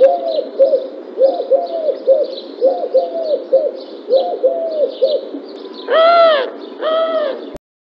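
Doves cooing: a quick run of short low coos, with faint high chirps of small birds above them. Two louder, longer, harsher coos come near the end, then the sound cuts off abruptly.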